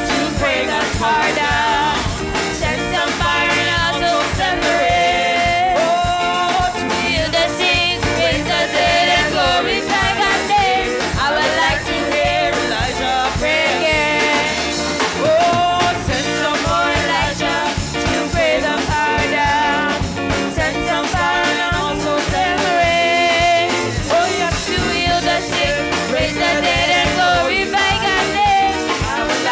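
Live gospel praise singing: several female voices on microphones leading a worship song, backed by a band with a drum kit keeping a steady beat.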